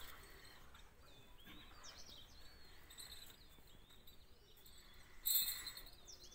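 Faint bird chirps over a quiet outdoor background, with one short hissing burst of noise about five seconds in.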